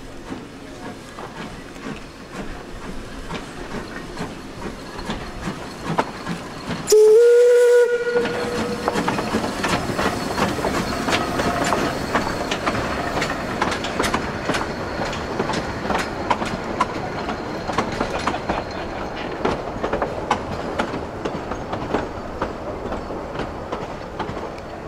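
Narrow-gauge steam locomotive sounding one short whistle blast about seven seconds in, the loudest sound here, as it pulls its train out. The coaches then clatter past over the rail joints in a steady run of clicks.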